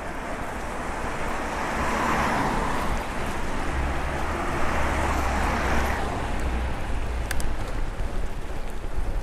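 Cars passing on a rain-wet street, their tyres hissing as they swell up and fade away over a few seconds, with low wind rumble on the microphone.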